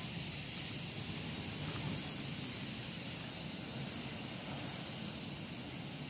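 Sea surf washing onto a rocky shore: a steady hiss with a low rumble underneath, and no single wave standing out.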